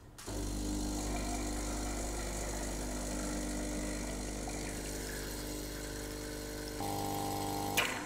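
Corrima single-group espresso machine's pump running with a steady low hum during an espresso extraction. Its tone shifts shortly before it cuts off with a click near the end.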